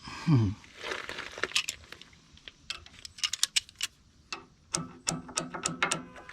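Steel washers and small hardware clinking and rattling as they are handled, a run of sharp metallic clicks with short ringing tones near the end. A brief low sliding tone sounds right at the start, the loudest moment.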